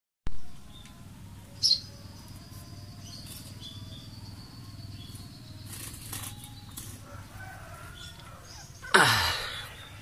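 Handling sounds: a sharp knock just after the start, a click about two seconds in, and a loud swish about nine seconds in that falls in pitch as it fades, as a cloth-covered bird cage is lifted and moved. Faint, brief, high chirps come through now and then, from young Eurasian tree sparrows.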